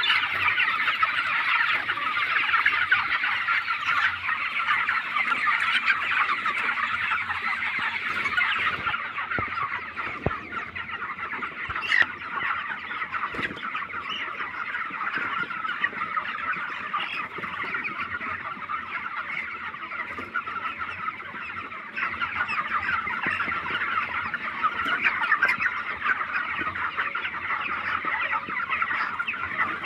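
A flock of 25-day-old broiler chickens chirping and clucking together in a dense, steady chorus, with one sharp click about twelve seconds in.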